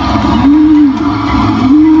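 Loud sound effect played over a loudspeaker: a low, siren-like tone that rises and falls about once a second over a low rumble, the spooky cue for the water demon's entrance.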